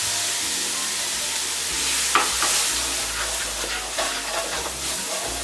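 Diced onions and curry spices frying in a little oil in a pot: a steady sizzle, with a utensil stirring and scraping against the pot a few times.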